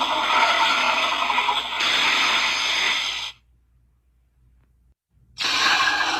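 Dragon sound effect: a loud, harsh, raspy sound lasting about three seconds that cuts off abruptly, followed by a second burst of the same kind near the end after a short near-silent gap.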